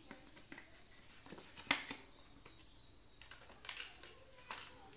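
Hands handling a plastic phone case and its plastic packaging tray: scattered light clicks and rustles, with the sharpest click a little under two seconds in.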